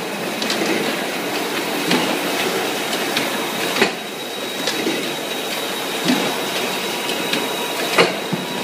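Automatic rotary blister sealing machine running: a steady mechanical clatter broken by sharp clanks, the loudest about four seconds in and near the end, over a faint steady high whine.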